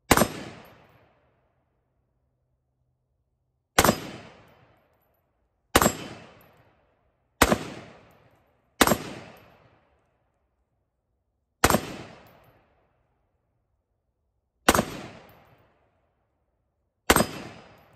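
Eight single shots from an AR-15 pistol with a 7.5-inch barrel, fired slowly at uneven gaps of about one and a half to three seconds. Each is a sharp crack that rings off over about a second.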